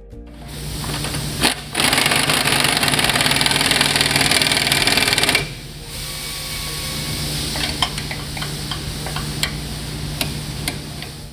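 Pneumatic impact wrench hammering for about four seconds, running the leaf-spring eye bolt of an RSX suspension hanger tight. After it stops, a few sharp clicks as the bolt is pulled up toward its 145 ft-lb torque with a hand torque wrench.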